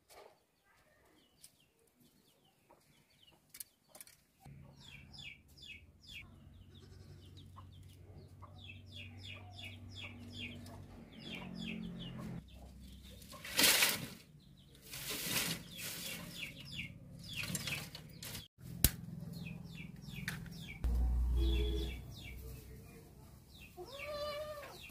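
Dry branches and leaves rustling and crackling in bursts as firewood is handled and dry leaves are piled into a clay stove, with birds chirping repeatedly in the background and one sharp click about three-quarters of the way through.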